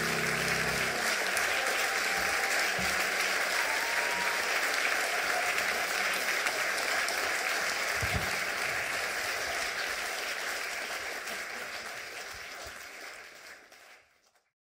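Audience applauding steadily, under the last piano chord that dies away in the first second. The applause fades out near the end.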